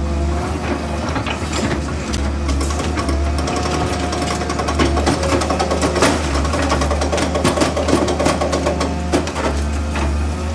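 Excavator at work: its engine running steadily with a dense, irregular clatter of metal clanks and knocks over it.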